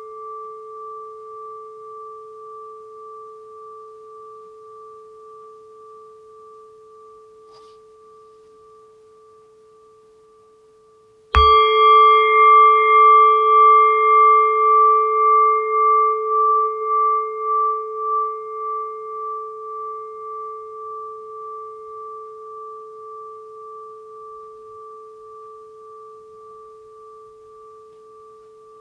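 Singing bowl struck once about eleven seconds in, ringing with a bright cluster of overtones over two steady main tones. The ring fades slowly with a regular pulsing waver. Before the strike, the ring of the previous strike is dying away.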